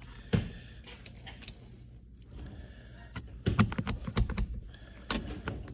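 A sharpened pointed tool poking through new carpet and its padding, ticking and tapping against the steel floor while searching for a seatbelt bolt hole. There is a single click near the start, a quick run of clicks in the middle and another near the end.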